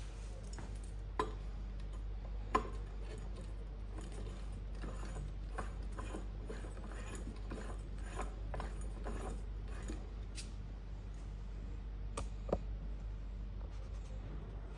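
Metal clicks and light scraping as a terminal connector is fitted and threaded by hand onto the copper stud of a transformer LV bushing. A few sharper clinks stand out, about a second in, near two and a half seconds and near the end, over a steady low hum.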